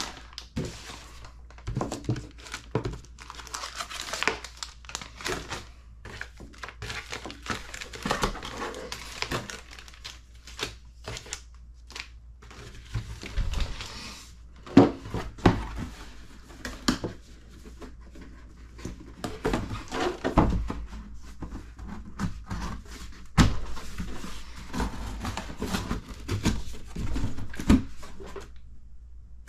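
Plastic parts bags crinkling and rustling as they are handled, along with the clear plastic truck body being picked up and set down. A few soft thumps stand out, about halfway through and again near two-thirds of the way in.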